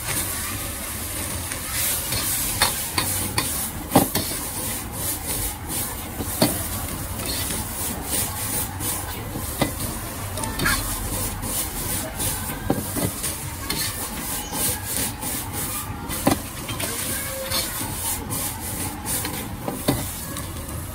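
A metal wok ladle scraping and clanking irregularly against a wok as noodles are stir-fried and tossed over high heat. The sizzle of the frying noodles runs underneath.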